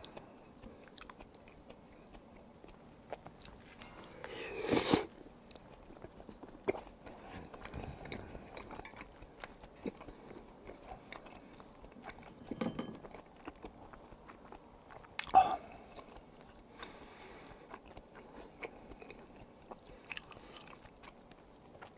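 Close-miked mouth sounds of a person eating tteokbokki: steady chewing and biting with small clicks, and a few louder moments about four, twelve and fifteen seconds in.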